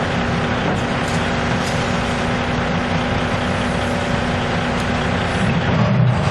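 Heavy diesel engines of a tracked excavator and a dump truck running steadily beside the trench. Near the end the engine note shifts and grows a little louder.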